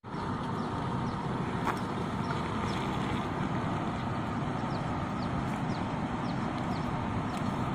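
Steady low rumble of wind on the microphone, with small birds giving short falling chirps every so often. There is a single click about two seconds in.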